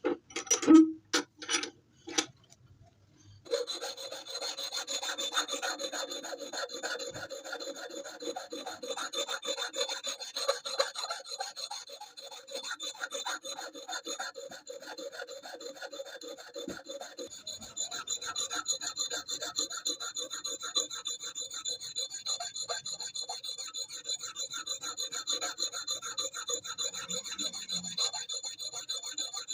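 A few loud knocks in the first two seconds, then a file rasping on steel in rapid, continuous strokes, the metal ringing with a steady high tone: a hatchet's blade being filed.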